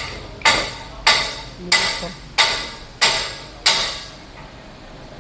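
Steady hammer blows, about seven of them a little over half a second apart, each with a short ring, stopping about four seconds in.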